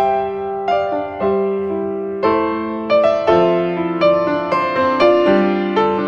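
Slow piano music: single notes and chords struck about every half second and left to fade.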